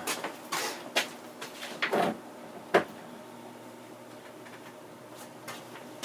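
A person rummaging among stored things, with several knocks and clatters of objects being moved in the first three seconds. Then only quiet room tone.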